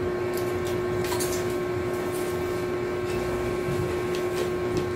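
A steady machine hum with a held tone runs under light, scattered clicks and mouth noises of people chewing food and handling a plastic bottle at a table.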